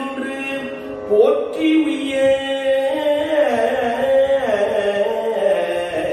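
A man singing a Tamil devotional verse in Carnatic style, holding long drawn-out vowels that slide between notes.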